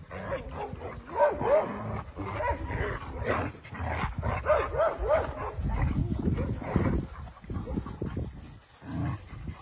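Several dogs yipping and barking in short runs of quick yelps as they jostle and play together, with a rougher, lower stretch in the middle.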